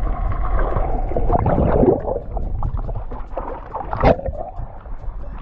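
Lake water heard through an underwater camera: muffled churning and gurgling, with a steady hum that fades out about two seconds in and a sharp splash of bubbles about four seconds in.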